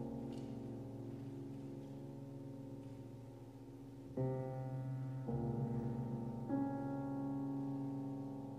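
Steinway grand piano playing slow, soft chords in the low and middle register, each left to ring and die away. Fresh chords are struck about four, five and six and a half seconds in.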